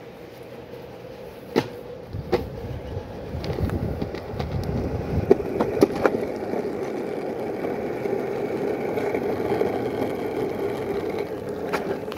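Sector 9 longboard's wheels rolling steadily over concrete and then asphalt, the rolling noise growing louder about two seconds in. A few sharp clicks come through in the first half.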